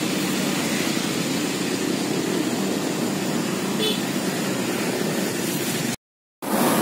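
Steady noise of city road traffic, motorcycles and cars passing, cutting out for a split second near the end.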